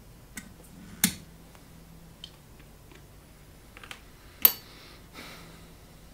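Small clicks and two sharp knocks, about a second in and about four and a half seconds in, as a control knob is pulled off the front panel of a VISOMAT exposure timer and handled on the bench, followed by a soft rustle.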